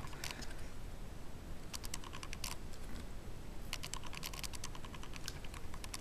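Small, sharp plastic clicks and taps from handling a syringe and a printer-ribbon ink canister. They come in quick flurries: near the start, about two seconds in, about four seconds in and near the end.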